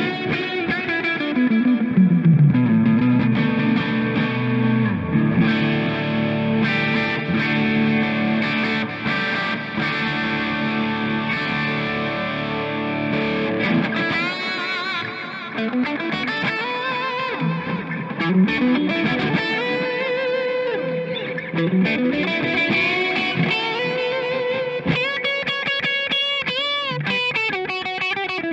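Squier Classic Vibe '70s Starcaster electric guitar playing a rock jam through overdrive and effects pedals, with bass guitar underneath. About halfway through the low bass drops away and the guitar plays lead lines full of string bends.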